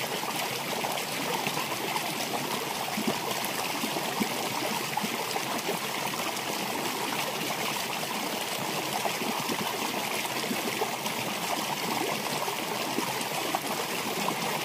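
Shallow rocky stream flowing, a steady rushing of water.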